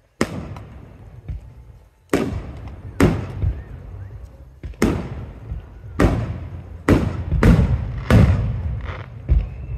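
Aerial firework shells bursting: about nine sharp bangs at irregular intervals, each trailing off in an echo.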